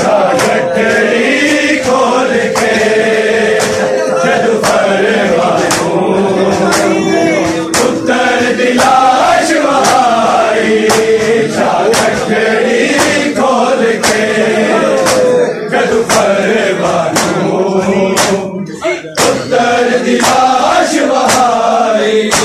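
A crowd of male mourners chanting a Punjabi noha in chorus, with hand slaps on bare chests (matam) struck together in a steady beat a little faster than once a second.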